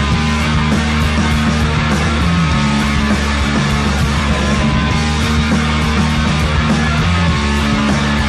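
Background rock music with guitars and a steady beat.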